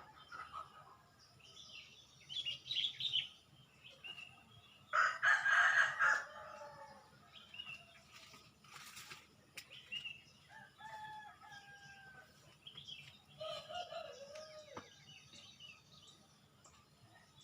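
A rooster crowing once, about five seconds in, amid scattered short chirps and calls of other birds.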